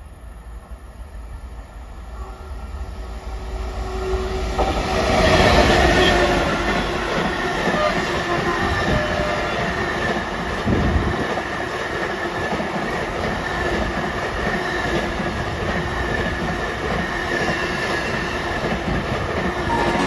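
Container freight train approaching and passing at speed, growing from faint to loudest about five seconds in as the locomotive goes by, then a steady rumble and clatter of the passing wagons with a thin steady high tone over it.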